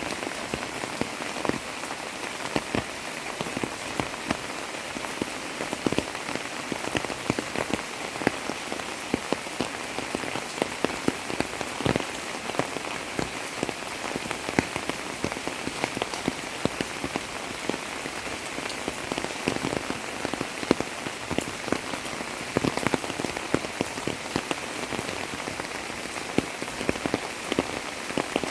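Monsoon rain falling steadily, a constant hiss with many separate drops ticking and splashing on nearby surfaces.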